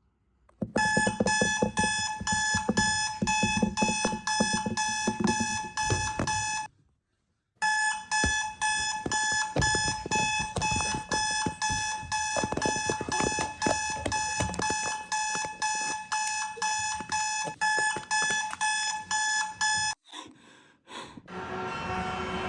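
Runaway alarm clock ringing with rapid repeated electronic beeps in a high two-note tone. About a third of the way in it breaks off for about a second, then resumes, and it stops shortly before the end.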